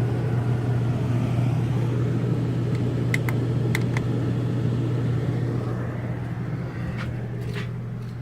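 RV rooftop air conditioner running with a steady low hum while blowing hot air (about 92 degrees at the vent), a sign that it is not cooling. A few faint ticks come about three to four seconds in, and the hum fades over the last two seconds.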